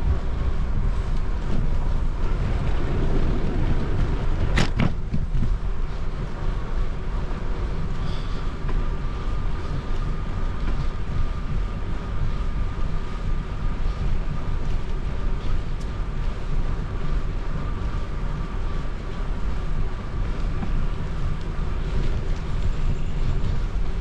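Wind buffeting the microphone over the steady rumble of a bicycle rolling along a trail, with a faint steady whine and one sharp click about five seconds in.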